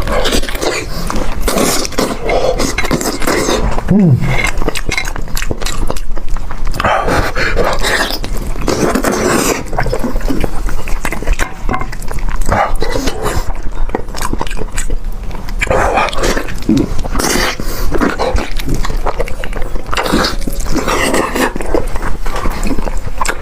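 Close-miked eating of a big pork knuckle: loud, irregular chewing and mouth smacking on the meat, with a short vocal grunt about four seconds in.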